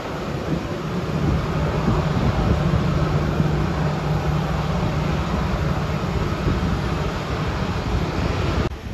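China Eastern Airlines Airbus A320's CFM56 turbofan engines running as the jet passes, a loud rumble with a low hum that builds over the first two seconds and holds, then cuts off abruptly near the end.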